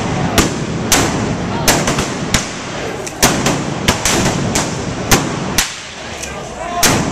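About a dozen gunshots fired at irregular intervals from blank-firing revolvers in a staged Old West gunfight, with voices beneath.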